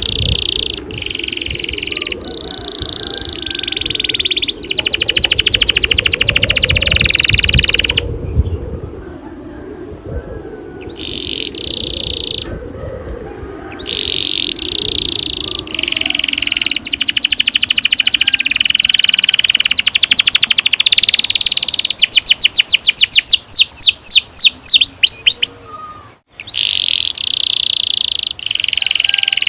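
Domestic canary singing long rolling trills: phrases of very rapid repeated notes held for several seconds at a time, broken by short pauses, with a run of quick sweeping notes about three-quarters of the way through.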